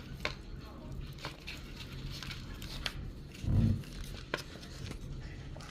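Slime being squished and handled, giving scattered small sticky clicks and crackles, with one louder dull thump about three and a half seconds in.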